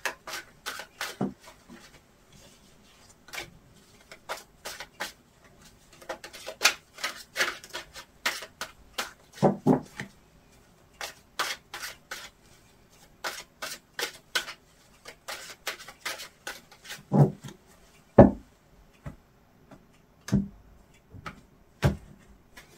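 A deck of tarot cards being shuffled by hand: quick, irregular slaps and clicks of cards sliding against each other, with a few heavier knocks near the end.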